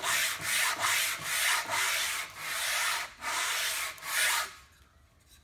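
A wooden piece's bandsawn edge rubbed back and forth over a sheet of sandpaper wrapped around a board, in short strokes about two a second, stopping about four and a half seconds in. The edge is being smoothed flat for gluing.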